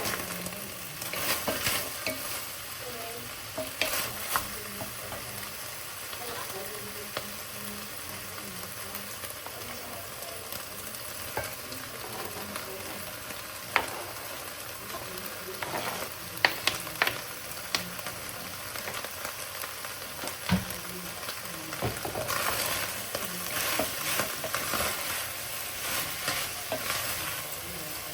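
Food sizzling in a frying pan as it is stirred, a steady hiss with scattered sharp clicks, most of them around four seconds in and in the second half.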